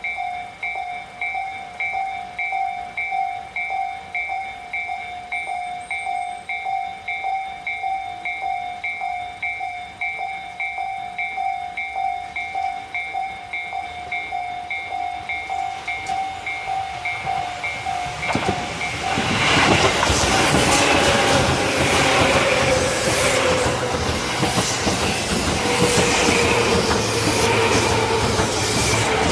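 A Japanese level-crossing warning bell rings in even, steady pulses. About 18 seconds in, the bell stops and a Tobu commuter train passes over the crossing, its wheels clattering over the rail joints under a loud rumble, with a slowly falling whine from the train.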